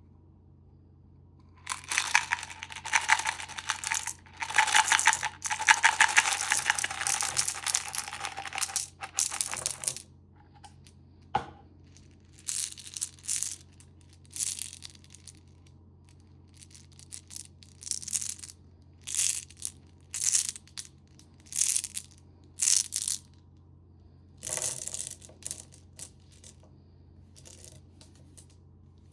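Plastic candy packaging crinkling and tearing: a long stretch of dense crackling, then a series of short separate rustles.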